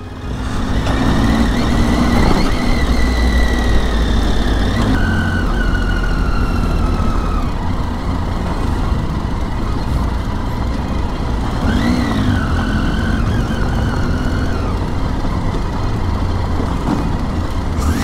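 Triumph Tiger 800's three-cylinder engine running under way, its pitch drifting as the revs change and rising and falling once about twelve seconds in, over heavy wind rumble and road noise from the dusty gravel surface.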